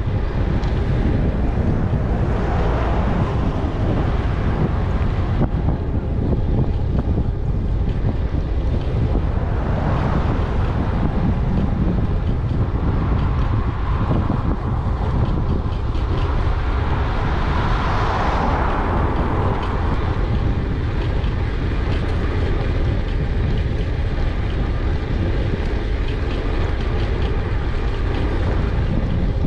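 Wind rumbling over a GoPro Hero 8's microphone on a moving e-bike: a steady, heavy low rumble with hiss that swells a few times.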